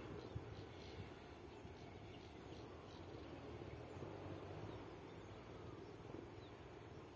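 Faint rural outdoor ambience: a low, even background hum with a steady high-pitched whine and a few faint, short bird chirps.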